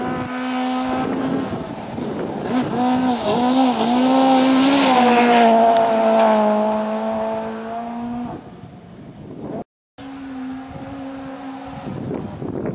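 Citroën C2 R2 rally car's four-cylinder engine revving hard on a gravel road as it approaches, its note wavering and climbing, loudest as it passes about five seconds in, then falling in pitch as it pulls away. After a sudden break a little before ten seconds, a fainter, steadier engine note of a car further off.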